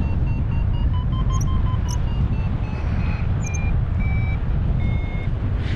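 Paragliding variometer beeping in flight: a steady run of short pitched beeps that rise slightly about a second in, then drop lower and stretch longer after about three seconds, showing the climb easing. Wind rumbles on the microphone underneath.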